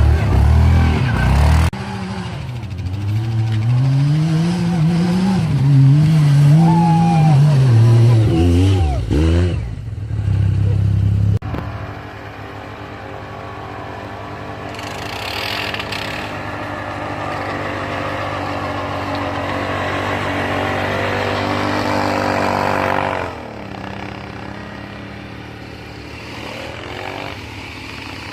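Off-road vehicle engine being driven hard, its pitch rising and falling over and over with the throttle. It then holds a steady, slowly climbing pitch for about ten seconds before easing off and going quieter near the end.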